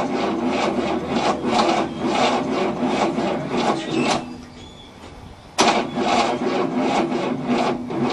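Starter motor cranking the 1967 Cadillac's 429 V8 over in slow, rhythmic pulses without it firing. The cranking stops about four seconds in and starts again a second and a half later. It is turning too slowly to start, with the battery and jumper cables overloaded to the point of smoking.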